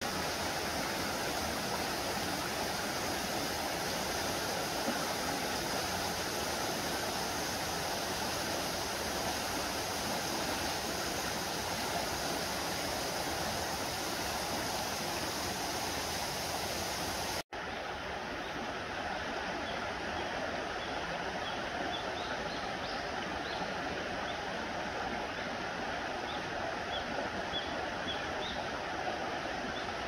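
Shallow rocky mountain stream flowing, a steady rush of running water that cuts out for an instant about halfway through.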